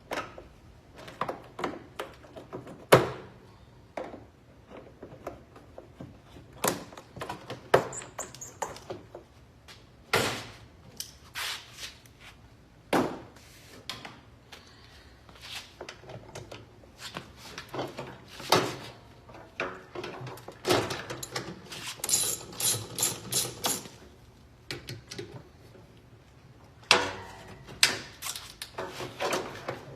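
Irregular knocks, clicks and clunks of tools and parts while a direct-drive washing machine is being taken apart, with a quick run of about eight sharp clicks a little past the middle.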